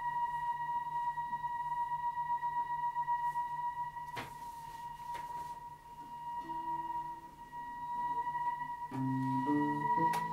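Theremin and guitar playing: a long, steady high tone is held throughout, and separate guitar notes come in during the second half, growing busier near the end.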